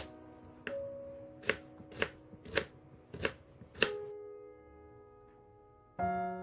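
Knife chopping raw sweet potato on a wooden cutting board: about six sharp strokes, roughly one every half second, over the first four seconds, with background music underneath that carries on alone afterwards.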